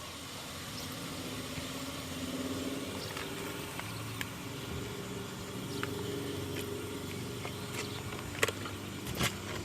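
Liquid R-410A refrigerant flowing from the tank through the gauge manifold and hoses into the system while it is being charged: a steady hiss with a faint wavering whine, and a few light clicks near the end.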